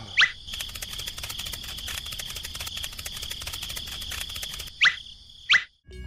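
Cartoon-style sound effects: a short rising squeak, then a rapid patter of light clicks over a steady high-pitched hum for about four seconds, then two louder rising squeaks near the end.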